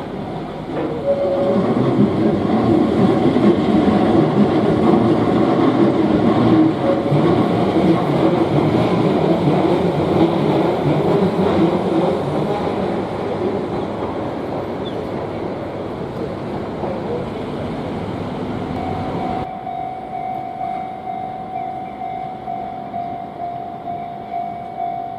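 A Keihan Ishiyama-Sakamoto Line train passing over a level crossing: a loud rumble of wheels on rail, with the crossing's electronic alarm bell ringing. Near the end the train sound cuts off suddenly, leaving only the alarm bell clanging in a steady, even rhythm.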